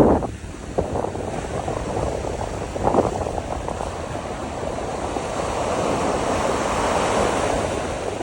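Sea waves breaking and washing in, with wind blowing across the microphone. A wave crashes about three seconds in, and a longer surge of surf builds to a peak near the end and then eases.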